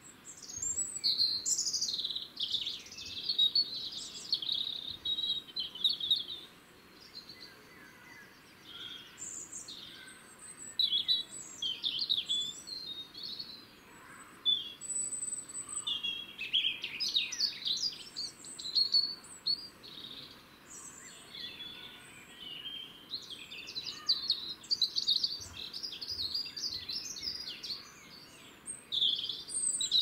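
Small songbirds singing: quick, high-pitched twittering and trilling phrases of a few seconds each, with short pauses between them.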